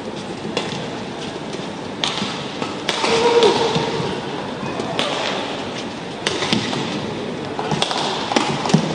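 Badminton doubles rally: sharp racket strikes on the shuttlecock at irregular intervals, about one to two seconds apart, over the noise of a crowd in a sports hall. A brief shout comes about three seconds in.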